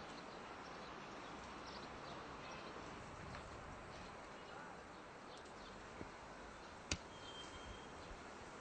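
Faint, steady outdoor background noise with a few faint high chirps. A single sharp click comes about seven seconds in.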